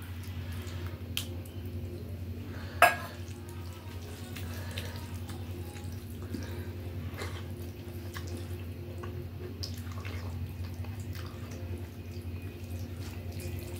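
Fingers mixing rice with sambar on a steel plate: soft wet squishing and small ticks of fingers against the steel, with one sharp clink about three seconds in.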